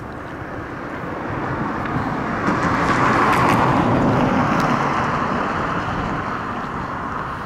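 A car passing by on the road: its tyre and engine noise swells to a peak about three seconds in, then fades away.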